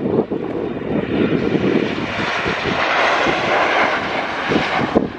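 Ryanair Boeing 737-800's jet engines on final approach, passing low and close: a steady rushing roar that grows brighter and higher-pitched from about a second and a half in, then eases near the end, with wind buffeting the microphone.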